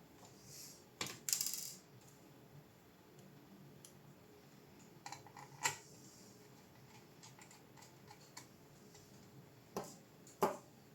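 Scattered clicks and light clinks of small hard parts being handled, with a brief rattle about a second in and a few sharper clicks near the middle and the end.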